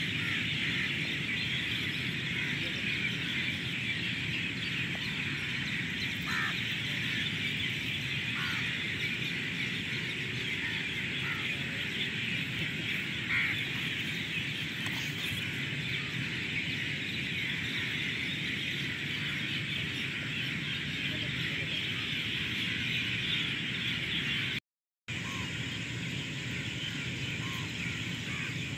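Dense outdoor chorus of birds chattering steadily, with scattered short chirps standing out, over a low background rumble. The sound cuts to silence for a moment near the end.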